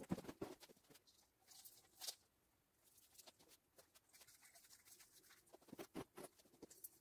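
Faint rustling and light clicks and taps as Christmas baubles are picked up and hung on the branches of an artificial tree. The sounds come in small scattered clusters, most at the start and again about six seconds in.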